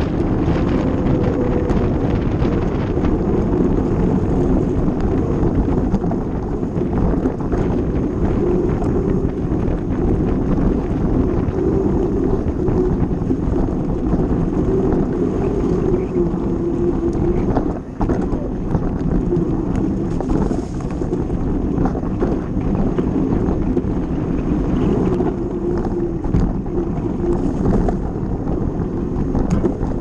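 Wind buffeting a moving action camera's microphone as a fat bike rolls fast down a dirt and gravel track, with the low rumble and hum of its wide knobby tyres and scattered knocks over bumps.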